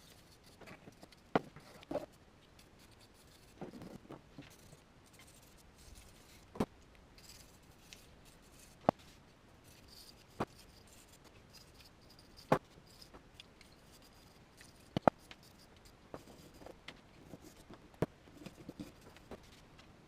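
Scattered sharp metal clicks and taps, one every couple of seconds, with short stretches of faint scraping between them: rust and grime being cleaned off a rusty fuel pump frame assembly with a wire brush.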